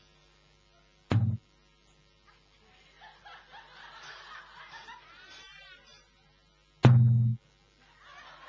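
Two single loud, deep drum hits about six seconds apart, each a sharp strike with a short low boom, with an audience laughing and murmuring in between.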